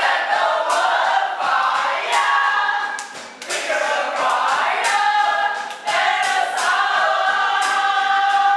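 A group of young voices singing together to an acoustic guitar, with short sharp strokes marking the beat.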